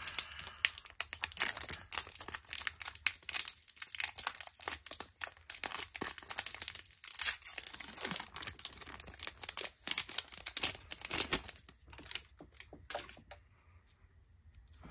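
Foil Yu-Gi-Oh booster pack being torn open and crinkled by hand: a dense run of crackles that dies down about twelve seconds in.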